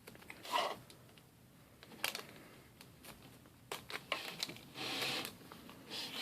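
Faint handling sounds of small fingerboard parts and their packaging: a few scattered light clicks and a brief rustle about five seconds in.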